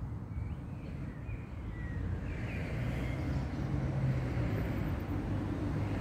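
Outdoor background noise: a steady low rumble that grows slightly louder, with a few faint high chirps from about two to three seconds in.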